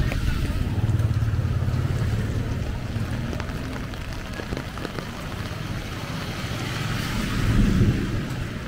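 Steady hiss of heavy rain on a street, with the low rumble of motor-vehicle engines close by; a vehicle passes louder near the end.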